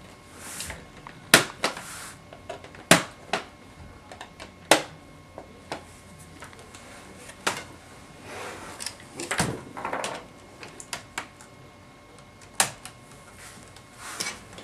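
Plastic clicks, clacks and knocks from an HP Pavilion dv2000 laptop's casing being handled, turned over and set down on a desk, with a few brief scrapes of it sliding about. The sharpest clacks come about a second and a half, three and five seconds in.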